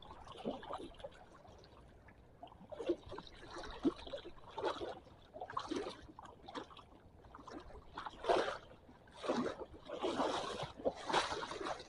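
Shallow seawater splashing and trickling in irregular small bursts, more often in the second half.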